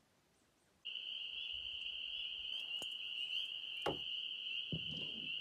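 Steady, high-pitched animal trilling that starts abruptly about a second in and runs on unbroken, with two dull knocks near the end.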